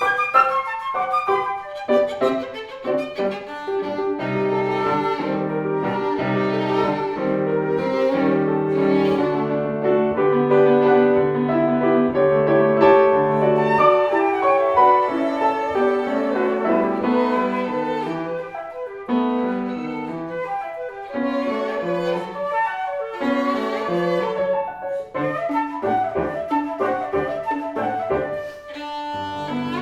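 Chamber trio playing classical music: piano with bowed strings (violin and cello), sustained string notes over struck piano chords.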